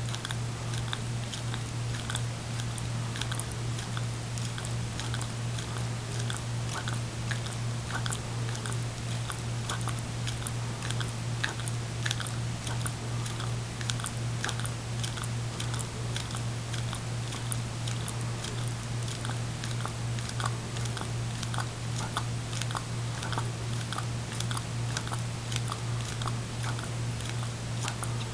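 Greyhound licking frozen dog ice cream out of a small paper cup: a steady run of wet tongue clicks and smacks, a few each second, over a steady low hum.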